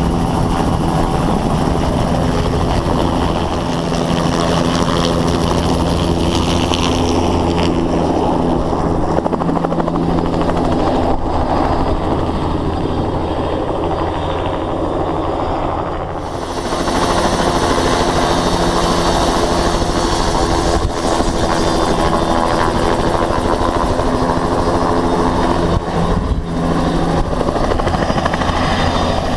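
Crop-dusting helicopter's rotor and turbine engine running steadily while it hovers and flies low close by. The sound shifts abruptly about eleven and sixteen seconds in, and it is louder after the second change.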